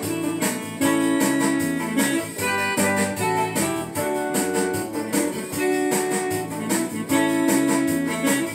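Instrumental break of a cumbia-style song: a melody of short, stepping notes over a bass line and a steady beat.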